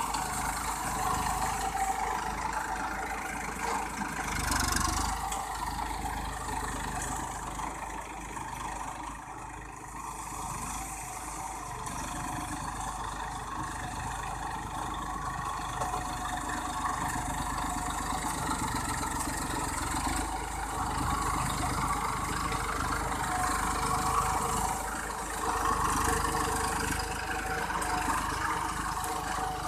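New Holland 4510 tractor's diesel engine running steadily while ploughing a paddy field, briefly louder about four seconds in.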